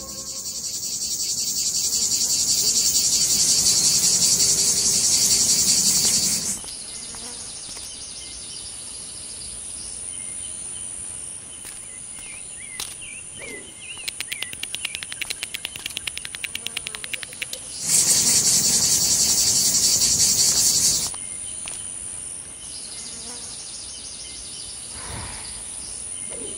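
Cicadas buzzing: a loud, shrill, steady buzz for about six seconds, dropping to a quieter buzz, with a stretch of fast clicking in the middle, then a second loud spell of about three seconds before it falls quiet again.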